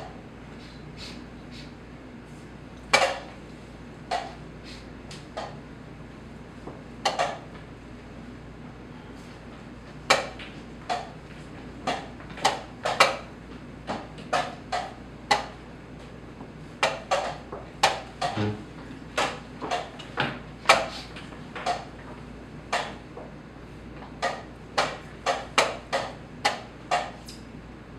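Wooden chess pieces set down hard on the board and chess clock buttons slapped during fast blitz play: sharp knocks, a few in the first ten seconds, then coming quickly, often in pairs, for the rest.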